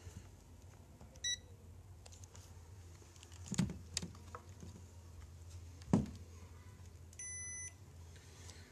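Multimeter continuity beeper sounding twice: a short beep about a second in and a longer half-second beep near the end, with a few sharp clicks in between. The beep signals that continuity remains between the VCOM supply and the panel line even after the trace was cut.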